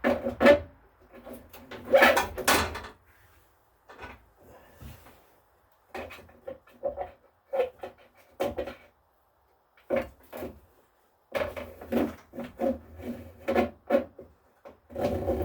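Irregular clunks, knocks and rattles of hands and parts being moved around a lawn tractor's engine compartment, in clusters with short pauses between them.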